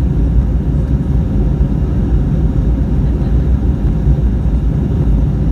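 Steady low rumble of an Airbus A320neo's cabin noise: its Pratt & Whitney PW1100G engines and airflow heard from inside the cabin, even and unbroken.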